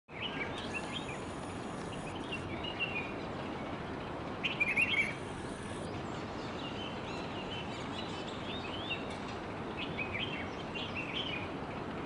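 Himalayan bulbuls calling: short, scattered chirps, with a louder burst of calls about halfway through, over a steady background hiss.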